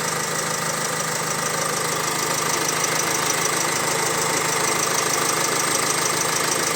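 Opel Insignia B16DTH 1.6 petrol engine idling steadily, with a faint even ticking over the running. It carries a flapping rustle that the mechanic traces to the small transmitting gear in the timing-chain drive.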